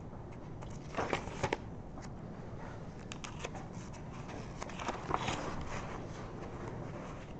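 Soft rustling and a few light clicks from paper and desk items being handled, over a steady low room hum.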